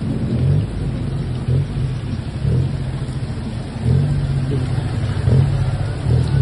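A vehicle engine running under way in heavy rain. Its low hum drops off and picks up again several times, over a steady rush of rain and wet-road noise with wind on the microphone.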